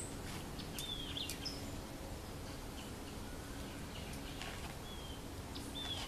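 Outdoor background ambience with birds chirping: a few short whistled chirps, about a second in and twice more near the end, over a steady background noise with a faint low hum.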